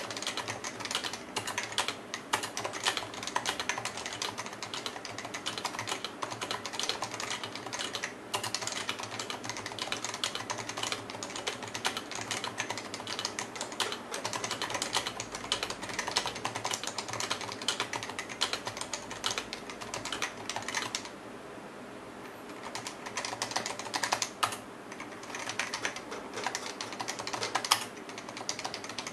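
Steady fast typing on a Topre keyboard with rubber-dome electrostatic-capacitive switches: a rapid run of soft keystroke clacks, with a pause of about three seconds about three-quarters of the way through.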